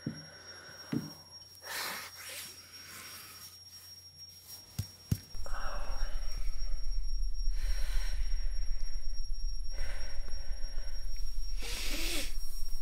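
A man breathing heavily, with several long, ragged breaths and sighs. About five seconds in, two short knocks are followed by a loud, steady low rumbling drone that runs on under the breathing.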